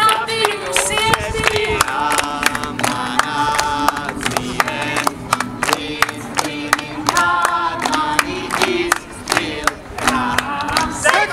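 A crowd sings a worship song with guitar accompaniment, clapping along steadily on the beat.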